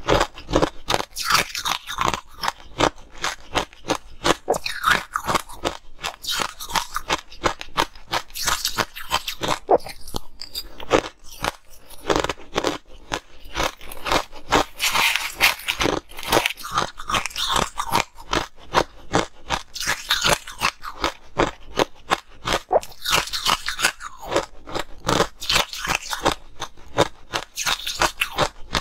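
Close-miked chewing of crushed purple ice: rapid, dense crunching, with a short lull about twelve seconds in.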